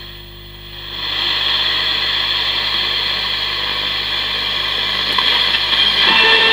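Ramsons transistor radio's speaker giving a loud, steady static hiss while being tuned, with a brief dip just after the start; near the end a station's music begins to come through. Its sound now plays without cutting out, the faulty volume potentiometer having been replaced.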